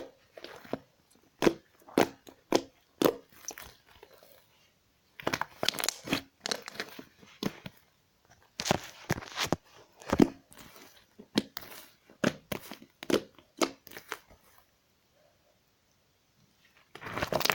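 Slime being squeezed and worked by hand, giving irregular crackling and popping clicks in bursts. It goes almost silent for a couple of seconds near the end, then crackles again.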